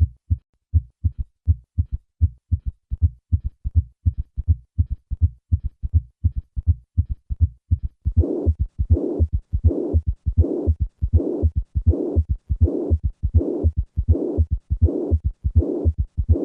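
Recorded heart sounds of a patient with mitral regurgitation and both a third and a fourth heart sound: low thuds in a steady rhythm of about 80 beats a minute. About halfway through, the murmur of mitral regurgitation joins in as a louder, hiss-like sound with every beat.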